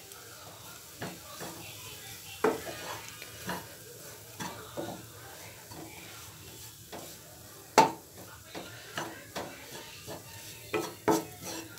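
A spatula stirring and scraping shredded chicken around a non-stick kadai, with irregular taps against the pan over a faint sizzle of frying masala. The loudest is a sharp knock about eight seconds in, and a few more come near the end.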